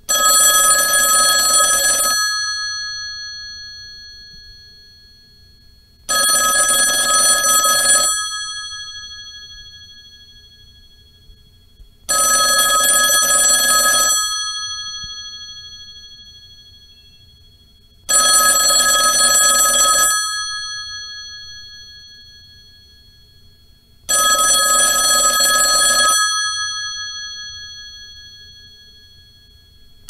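Old rotary telephone's mechanical bell ringing: five two-second rings, one every six seconds, each ring's tone dying away slowly in the pause after it.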